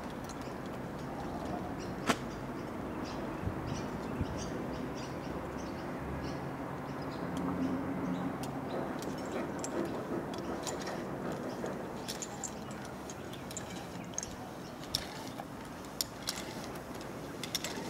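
Steady outdoor background noise with scattered sharp metallic clicks and clinks from the climbing hardware of a MicroFrog SRT system (hand ascender, chest ascender, foot ascender and carabiners) as a climber moves up a rope. The clicks come more often near the end.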